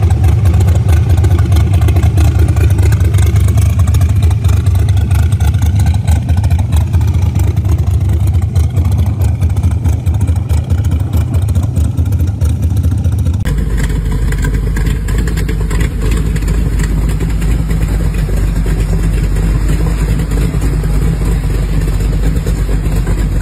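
Exposed carbureted V8 of a hot rod coupe running loud with light revving, the car moving off. About 13 seconds in, it cuts to a second hot rod engine idling steadily.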